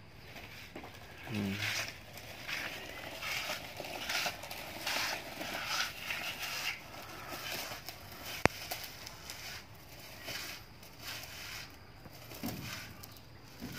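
Small plastic tricycle wheels rolling and scraping over gritty concrete, with irregular crackling scuffs. There is one sharp click about halfway through.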